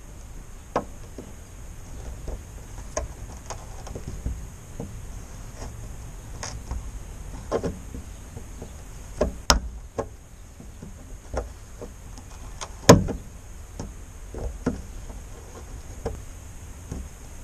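Diagonal side cutters gripping and levering at small fasteners in the groove of an old wooden window sash. Irregular metal clicks and small wood cracks, with two sharper snaps, one about halfway through and one about three-quarters of the way through.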